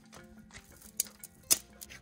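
Background music, with two sharp snaps from dry twigs being handled, about a second in and again half a second later.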